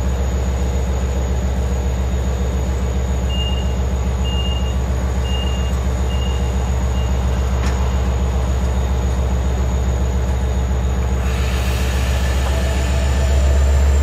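A diesel-hauled train of bi-level passenger cars standing at a platform, its engine running with a steady low hum. Five short high beeps sound between about 3 and 7 seconds in, a door-closing warning, and the noise grows louder near the end as the train gets ready to leave.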